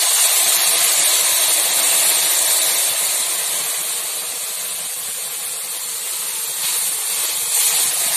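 Water poured into a hot kadai with a little frying oil left in it, hissing loudly as it flashes into steam. The hiss eases slightly midway and swells again near the end.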